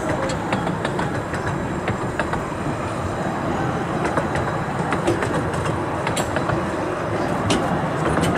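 15-inch-gauge narrow-gauge passenger carriages rolling past close by: a steady rumble of wheels on rail, with scattered sharp clicks.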